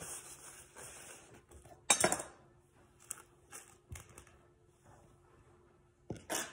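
Kitchen handling sounds: a crinkly rustle of wrapping at the start, a sharp metallic clatter about two seconds in, a few lighter clicks and knocks, then near the end a knife scraping crumbs across a stone countertop.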